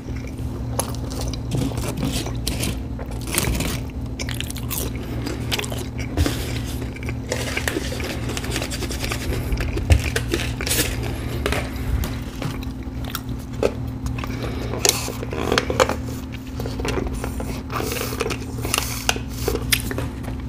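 A person chewing and biting food, a run of irregular mouth clicks over a steady low hum.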